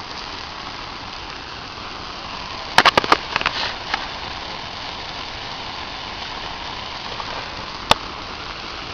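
Bonfire burning a mattress: a steady hiss of flames with sharp crackling pops, a quick cluster of four about three seconds in, a few smaller ones after, and a single pop near the end.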